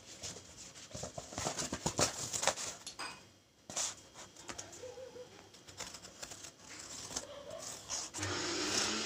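Handling noise of cardboard and the phone: scattered rustles and clicks, densest in the first three seconds. A steady low hum comes in near the end.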